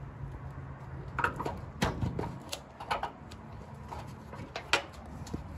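Scattered light clicks and metallic knocks from tools and a stainless steel exhaust header being fitted to the engine, over a low steady hum. There are about eight knocks at irregular intervals, and the sharpest comes near the end.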